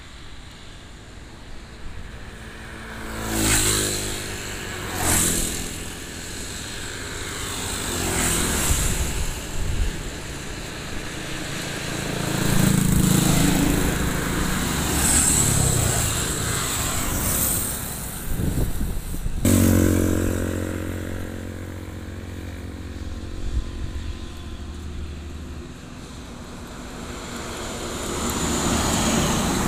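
Road traffic passing close by on a highway: motorcycles and trucks go by one after another, each swelling and fading away. A large truck's engine hum and tyre noise build toward the end as it approaches.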